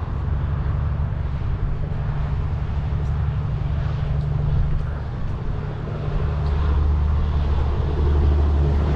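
A semi truck's diesel engine idling: a steady low rumble that grows louder about six seconds in.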